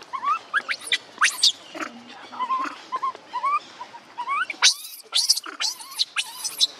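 Baby macaque crying: repeated short rising coos, then from about two-thirds of the way in, a run of loud, high screeches.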